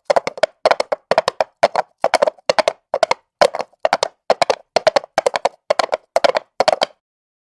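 Horse's hooves trotting on asphalt: a steady clip-clop of hoof strikes in quick clusters about two times a second, stopping shortly before the end.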